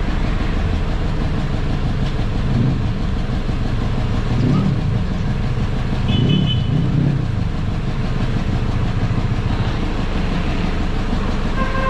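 Street traffic: car and motorcycle engines running with a steady low rumble, swelling as vehicles pass about four and a half and six and a half seconds in.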